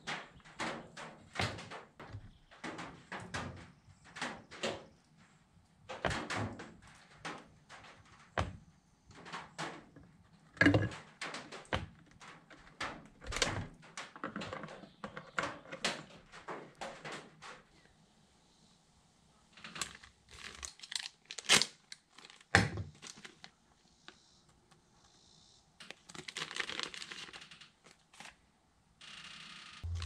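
Hands working on a Husqvarna 55 Rancher chainsaw: a run of clicks, taps and knocks of plastic and metal parts being handled and fitted, with a few sharper knocks around the middle and toward two-thirds through. A plastic bag crinkles near the end.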